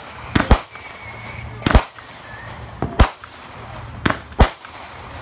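Aerial fireworks bursting overhead: a string of sharp bangs, roughly one a second, some in quick pairs.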